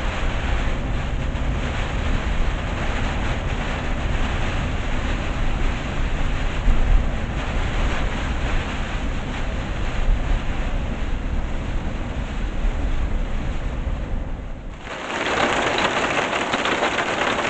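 Cabin noise of a camper van driving on a wet road in rain: steady engine drone and tyre hiss. Near the end this gives way to heavy rain falling hard on the windscreen.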